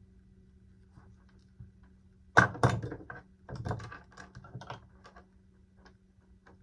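A sharp clatter of clicks about two and a half seconds in, then a run of lighter clicks and taps for a couple of seconds: small parts and tools being handled on a workbench. A low steady hum runs underneath.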